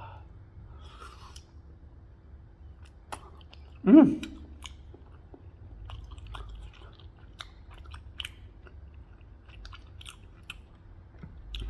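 A person chewing longanisa sausage close to the microphone, with many small wet mouth clicks. About four seconds in comes a short hummed "mm".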